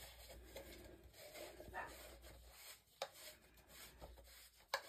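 Faint rubbing and wiping of an item being cleaned by hand, with two light clicks: one about three seconds in and one near the end.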